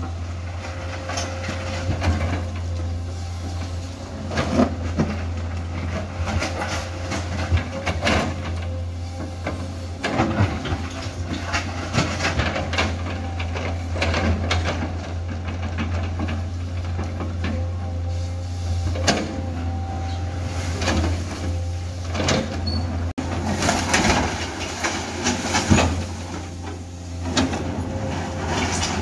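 Excavator working gravel in steel hopper wagons: a steady low engine hum with irregular clanks, knocks and stone clatter as the bucket works the load.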